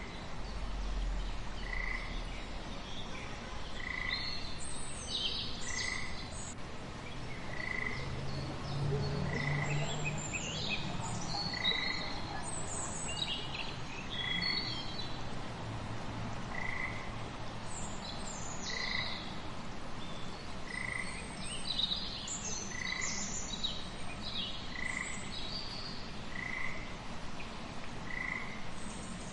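Frog calls in a chorus: one short note repeating evenly about every two seconds, with irregular higher-pitched chirps scattered over it.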